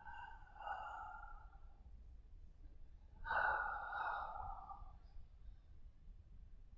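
A man's deep breaths in a yogic double-breathing stretch: two audible breaths about three seconds apart, the second louder.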